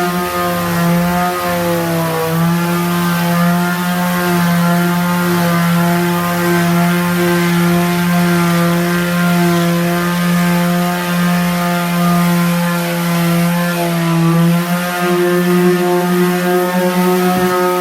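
Electric power sander running steadily with a loud motor whine; its pitch dips briefly twice, about two seconds in and again near the end.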